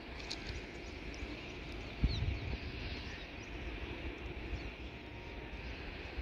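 Twin WAP-7 electric locomotives approaching: a steady low rumble and hiss, with one low thump about two seconds in.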